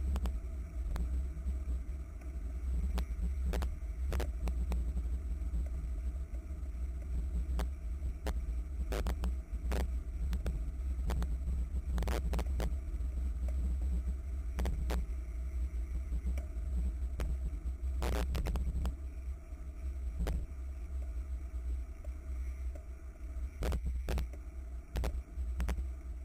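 Wind rumbling and buffeting on the microphone of a camera mounted on a racing bicycle at speed, with sharp clicks and knocks every second or few seconds as the bike goes over the road.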